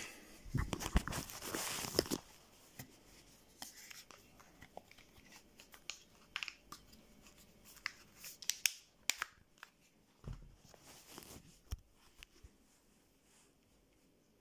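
Rustling and clicking handling noise of a phone camera being moved about, densest in the first two seconds, then scattered clicks and brief rustles that die away near the end.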